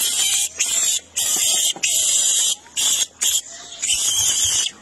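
Macaques giving a rapid series of harsh, high screeching calls, about seven in quick succession.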